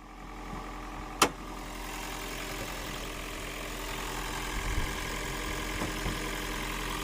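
Second-generation Toyota Prius's 1.5-litre four-cylinder petrol engine idling steadily in service mode, running on its own with the hybrid electric drive cut out while it warms up. A single sharp click about a second in.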